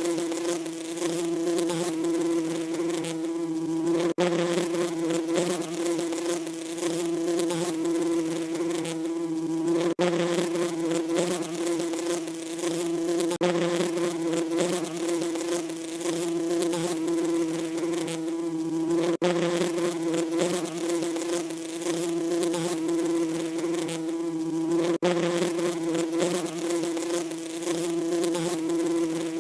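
Bees buzzing in a steady, continuous drone, with a faint click every few seconds.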